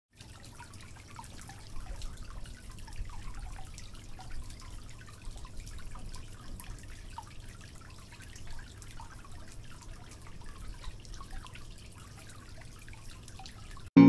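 Small tabletop tiered waterfall fountain running: water spilling from one basin into the next and splashing into the pool below, a steady trickle with scattered drips.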